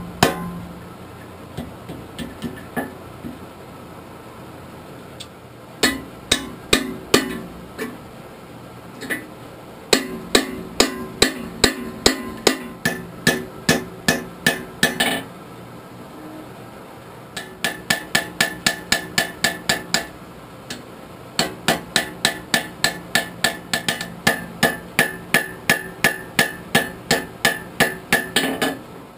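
Hand hammer striking hot steel on an anvil, forging a spike tomahawk. The blows come in runs of about three to four a second, each with a metallic ring after it, broken by short pauses.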